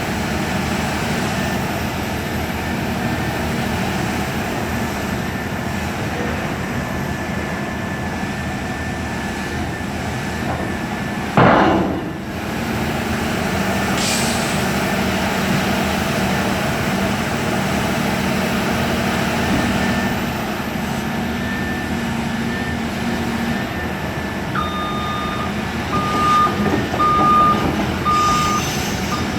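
CAT excavator's diesel engine running steadily, with a single loud, sudden hiss-like burst about eleven seconds in. From about two-thirds of the way through, a travel alarm beeps at a steady pace, the sign that the machine is moving.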